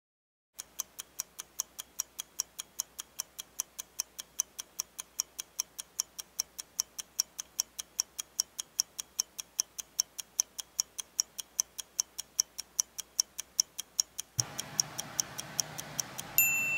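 Steady clock ticking, about four ticks a second. It starts over dead silence, so it is a clock-tick sound effect laid over the wait. Near the end a steady high electronic beep begins.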